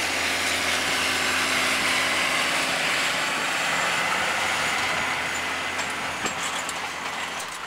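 A tractor driving past close by, its diesel engine running steadily with road noise, followed by the towed folded field cultivator rattling and clinking as it goes by; the sound fades near the end.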